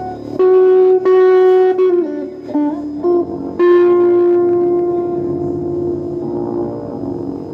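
Guitar playing a slow melodic line of sustained single notes, with pitch bends about two seconds in and one long held note that slowly fades.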